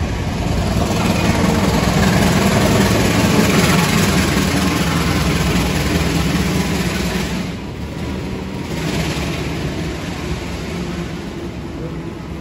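KAI diesel locomotive passing close by, its engine drone and wheel noise loudest over the first several seconds, then easing as the passenger coaches roll past with a steady rumble.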